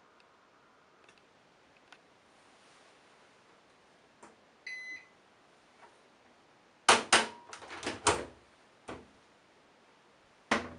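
A short electronic beep from the Candy Bianca washing machine, then about two seconds later a quick cluster of loud clacks and knocks from its porthole door being unlatched and opened. One more knock comes near the end.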